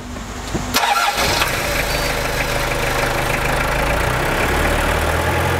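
Vehicle engine started about a second in, then running at a steady idle.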